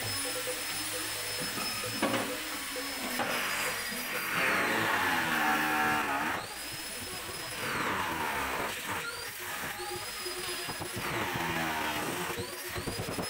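Handheld electric power tool switched on in bursts: each a high whine that rises, holds and winds down, first one long run, then several short ones. Harsher grinding noise comes in while it works the wood.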